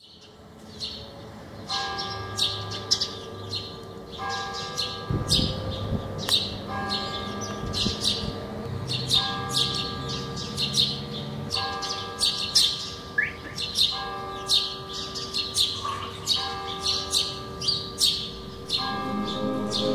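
Many small birds chirping busily and without pause, with a bell-like ringing tone that strikes again about every two and a half seconds underneath. Music swells in near the end.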